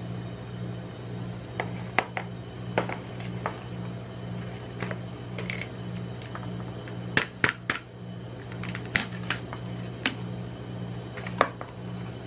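Gloved hands opening a cardboard Pringles can: scattered clicks and crinkles as the lid and seal are pulled off, with the sharpest cluster a little past halfway. A steady low hum runs underneath.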